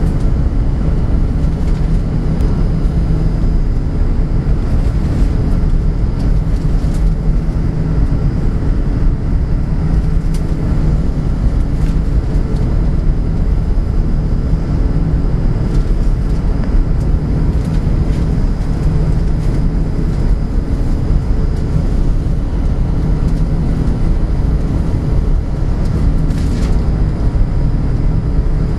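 Airbus A380 cabin noise in the climb: the steady low rumble of its Rolls-Royce Trent 900 engines and airflow past the fuselage, heard from a window seat over the wing.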